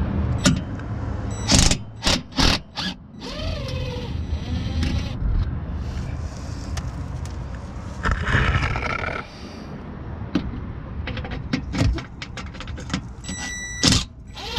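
Scattered metallic knocks, clinks and scrapes of a wrench and hand tools on the car's underbody skid plate bolts, over a steady background noise.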